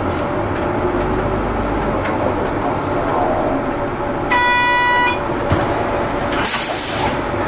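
City bus running, heard from inside the cabin as it moves off slowly: steady engine and road noise. About halfway through a horn sounds for under a second, and a short hiss follows near the end.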